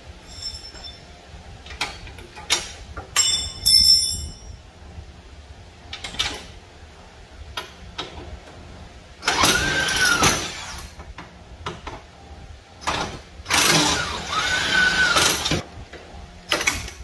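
Cordless impact wrench running in two long bursts, each a second and a half to two seconds, its motor pitch rising then falling in each, on the suspension bolts of a car's front wheel hub. A few seconds before them, sharp metal clinks and clanks of tools and parts ring out.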